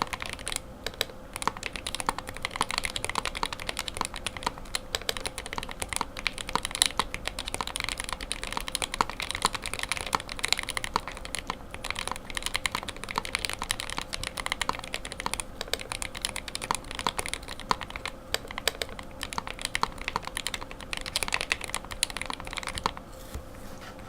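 Continuous typing on an iGK62 aluminum-case keyboard with lubed Gateron optical linear silver switches, 78 g springs and ePBT keycaps: a dense run of keystroke clicks that stops about a second before the end.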